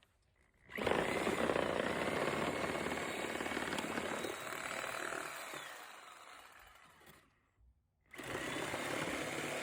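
Electric saw cutting through old fence wood. It starts about a second in, runs for about six seconds and tapers off, stops briefly, then starts cutting again near the end.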